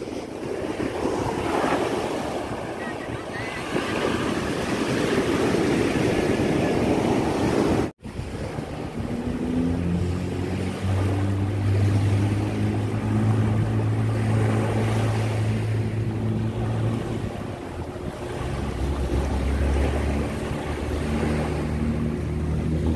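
Sea surf breaking and washing up a sandy beach, swelling and falling for the first few seconds. After a short break, smaller waves lap the shore under a steady low motor hum.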